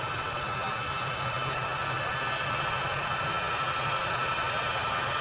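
Jet engines of a large transport aircraft taxiing at low power: a steady turbine whine over a low rumble, growing gradually louder as the aircraft comes closer.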